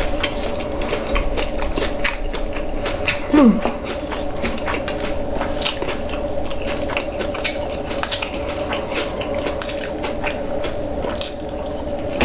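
Crunchy hard-shell tacos being bitten and chewed, a steady run of sharp crunching crackles. About three and a half seconds in, a short louder sound slides down in pitch.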